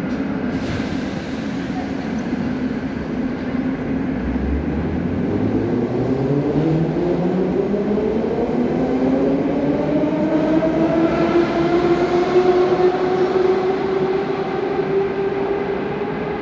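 An 81-717.5A/714.5A metro train pulling away from the platform. Its traction-motor whine climbs steadily in pitch from about four seconds in as the train gathers speed, and levels off near the end, over a steady rumble of wheels and running gear.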